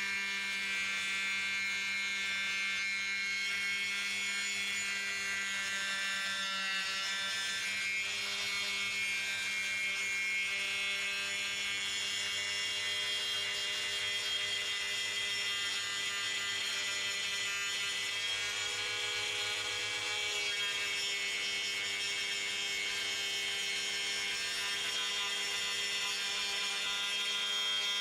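Rubi TC-125 electric tile saw running on a Slim Cutter guide rail, its disc cutting a thin strip along the length of a large tile slab: a steady motor whine with cutting noise, its pitch shifting slightly now and then.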